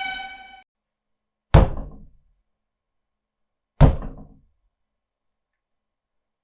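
Two heavy, sudden thuds from a meme sound effect, a little over two seconds apart, each dying away over about half a second. At the very start, a pitched horn-like tone cuts off.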